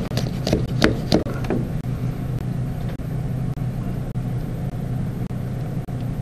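A hand vacuum pump worked on the sealed container's lid, giving about five short clicks in the first second and a half as it draws air out, with a steady low hum throughout.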